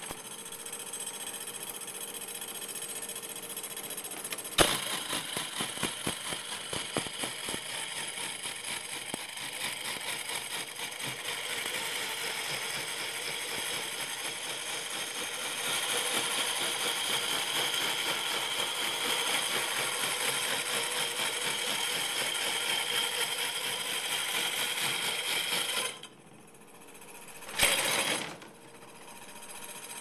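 Electric-motor-driven 1/12-scale model sawmill running: a steady whine from the motor, belts and saw shaft, with a fast rattle of small mechanical clicks, growing louder about halfway through. It cuts out suddenly near the end, a short loud clatter follows, and then a quieter running sound starts again.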